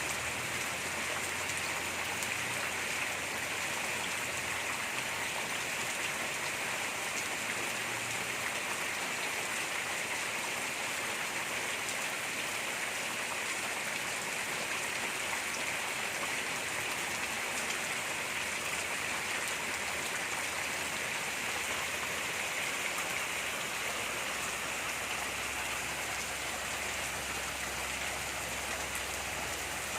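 Steady rain falling, an even hiss of many small drops hitting surfaces.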